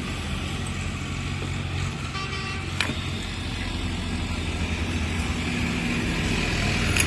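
A motor vehicle engine running steadily with a low hum, growing a little louder near the end, and a single sharp click about three seconds in.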